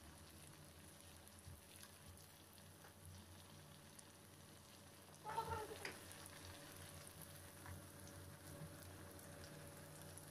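Stuffed qatayef deep-frying in hot oil in a pan, a faint steady sizzle, with a brief louder sound about five seconds in as metal tongs handle the pastries.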